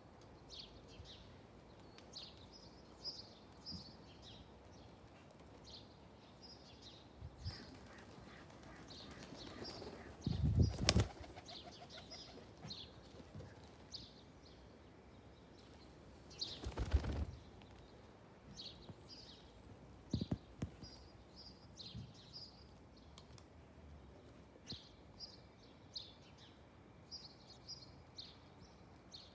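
A flock of tumbler pigeons in flight, their wingbeats swelling loudly twice as the flock passes close, about ten and about seventeen seconds in. Short, high bird chirps repeat throughout.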